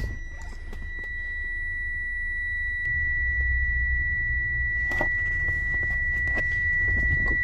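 The car's electronic warning buzzer gives one steady, unbroken high tone while the key sits turned in the ignition cylinder with the door open. A low rumble and a few light clicks of handling lie beneath it.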